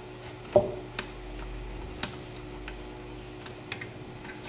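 A few sharp clicks and one heavier knock about half a second in, from fingers handling the small metal applicator device and its mounting screws on an aluminium linear axis.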